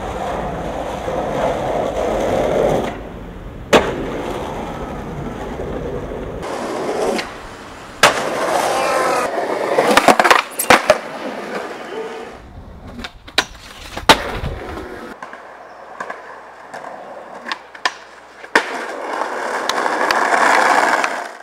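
Skateboard wheels rolling on smooth pavement and concrete, broken by sharp clacks of tail pops and landings. There is a dense patch of clacks and scraping about ten seconds in as the trucks grind a granite ledge. The sound changes abruptly several times as separate clips are cut together.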